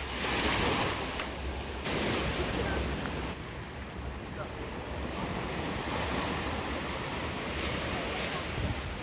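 Sea waves washing in, swelling three times: at the start, about two seconds in, and near the end. Wind buffets the microphone with a steady low rumble.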